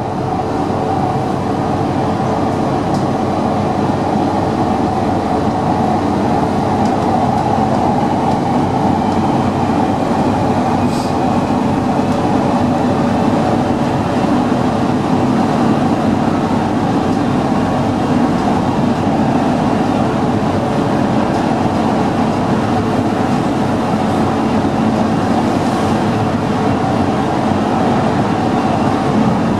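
Rome Metro Line C driverless train running through a tunnel, heard from inside the front car: a steady roar of wheels on rail, with a steady hum underneath.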